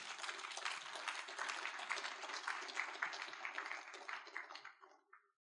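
Audience clapping and applauding, many hands together, dying away about four and a half seconds in.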